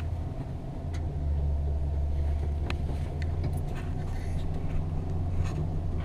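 Chevrolet Silverado 3500 pickup's engine running steadily, a low even rumble heard from inside the cab.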